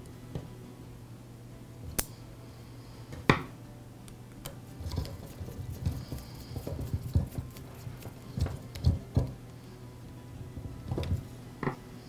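Small clicks and taps as cord-wire ring terminals are screwed onto the terminals of a replacement DeWALT angle-grinder switch with a screwdriver: sharp clicks about two and three seconds in, then a run of soft knocks and ticks through the middle. A faint steady hum runs underneath.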